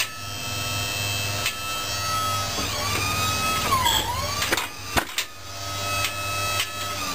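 Hydraulic pump of a sawmill's hydraulic claw turner whining steadily as the claw rolls a log over. Its pitch sags under load about four seconds in and then recovers. Two sharp knocks, one early and one about five seconds in.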